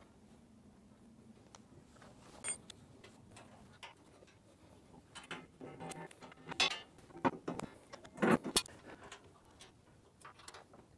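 Scattered metallic clicks, rattles and knocks from removing the fence bracket and side access panels of a jointer cabinet by hand. They are sparse at first, then bunch up in the second half, with the loudest knock about eight seconds in.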